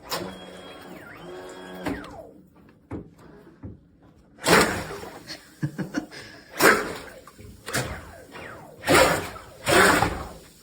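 The brushless motor of an RC speedboat whines up briefly, rising, holding, then falling. A few seconds later come four loud surges of the propeller churning and throwing water in a bathtub, each a second or less long.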